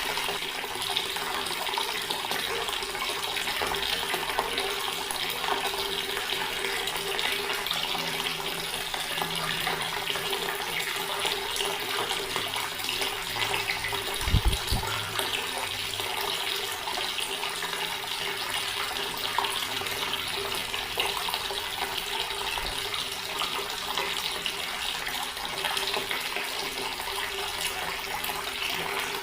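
Water running steadily from a tap and splashing into a stone basin, an even rushing splash with a faint steady low hum under it. A brief low thump about halfway through.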